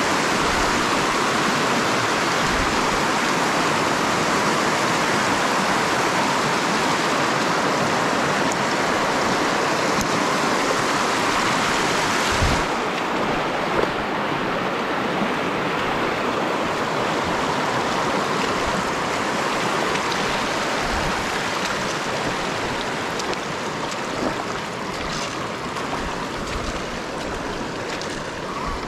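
River water rushing over shallow rocky rapids in a steady rush. About halfway through it turns duller, with a couple of knocks, and then slowly grows quieter.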